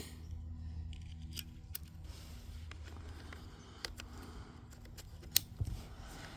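Small scattered clicks of .22 LR cartridges being handled and pressed into a CZ 512's 5-round magazine, with one sharper click about five seconds in, over a low steady hum.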